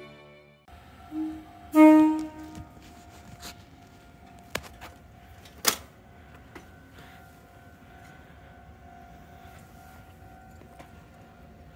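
Meitetsu 3500 series electric train sounding a short horn: a brief lower note, then a louder half-second blast. Afterwards a faint steady tone hangs under a few sharp clicks.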